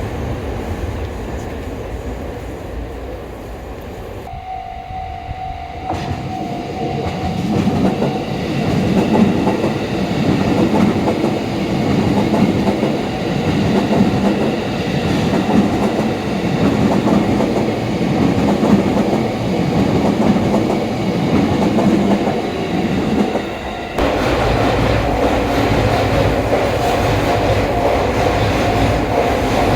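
Electric commuter train passing a level crossing, its wheels clattering over the rail joints. The sound changes abruptly twice, about four seconds in and again about twenty-four seconds in.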